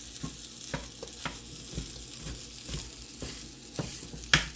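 Tater rounds sizzling in a hot pan as a fork chops them up into hash browns, the fork knocking on the pan bottom about twice a second. The last knock is the loudest.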